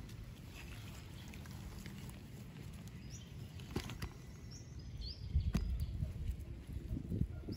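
Outdoor background with a few faint high bird chirps, several sharp clicks, and a low rumbling noise that swells in the second half.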